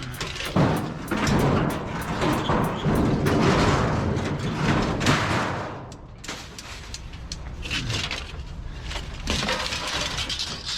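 Loose scrap metal clattering and banging, a dense run of metal impacts for about five seconds, then quieter, scattered knocks.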